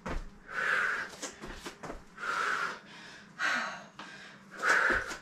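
A woman breathing hard and loud after plyometric jump squats, four heavy breaths about a second and a half apart as she catches her breath during a short rest.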